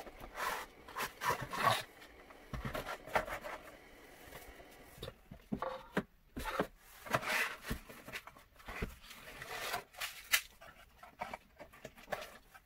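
Cardboard packaging being handled: paperboard box flaps and inserts slid, rubbed and tapped, in a run of irregular scrapes and small clicks.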